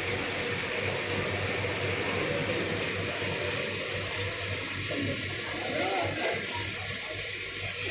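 Water running and splashing steadily without a break, the flow of the ritual bath poured over a temple deity's image.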